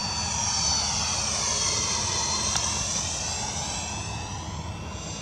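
Electric ducted fan of a Freewing MiG-21 RC jet whining as it flies past, the high whine sweeping down and back up in a swishing pass. It is loudest in the first half and fades toward the end, with a brief click about two and a half seconds in.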